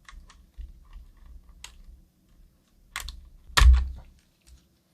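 Keycap being pulled off a Cherry MX Board 3.0S mechanical keyboard: scattered small plastic clicks and handling knocks, then one loud snap with a thump about three and a half seconds in as the cap comes free of its switch and stabilizer.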